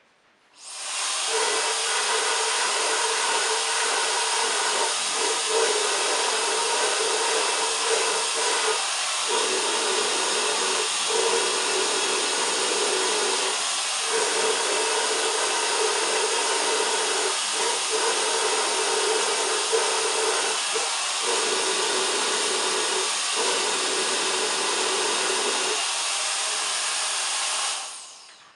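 Hair dryer switched on about a second in, blowing steadily as a rush of air over a low hum, and switched off near the end. The hum briefly drops out several times along the way.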